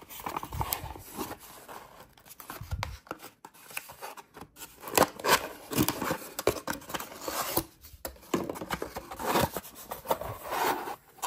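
Handling noise from unpacking an insulated bottle: irregular scrapes, rubs and light taps of the bottle against a cardboard box and crinkle-cut paper packing filler.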